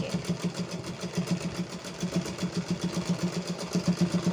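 Domestic sewing machine stitching steadily, the needle running with a fast, even rhythm.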